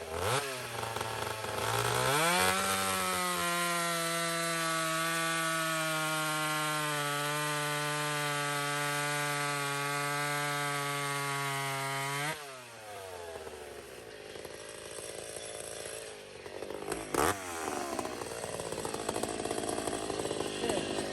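Two-stroke chainsaw revved up and held at full throttle for about ten seconds, its pitch settling a little lower as it cuts through wood, then released and dropping back to a low idle. A single sharp knock comes a few seconds after it drops back.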